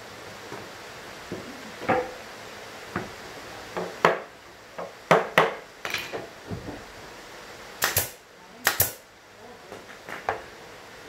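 Pneumatic brad nailer firing F-type brad nails into the plywood joints of a small speaker box: a series of sharp, unevenly spaced shots, with wooden knocks as the box is handled.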